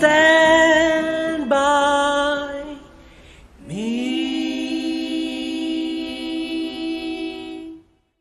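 A group of voices singing the last phrase of a song in long held notes. After a short break about three seconds in, they swoop up into a final note that is held for about four seconds and then cuts off sharply.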